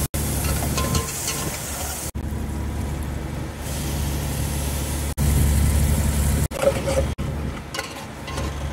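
Fishing boat's engine running with a steady low drone, broken by several abrupt cuts.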